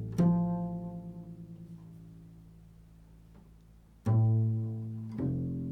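Improvised music of low plucked string notes, each struck sharply and left to ring out and fade. One note sounds just after the start and dies away slowly over about three seconds; two more follow near the end.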